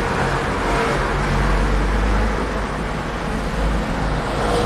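Steady background road-traffic noise: a continuous low rumble with hiss and no distinct events.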